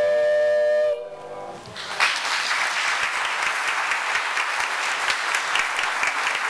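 The duet's last held note, two voices with vibrato, stops about a second in. After a short lull the congregation breaks into applause about two seconds in, and the clapping carries on.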